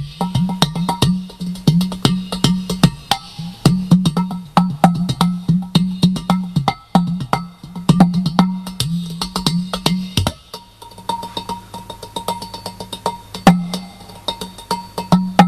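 Udu clay pot drum played with fast hand strikes: sharp taps over a deep low note that bends in pitch. About ten seconds in the playing drops to softer, sparser taps, then the full strokes return near the end.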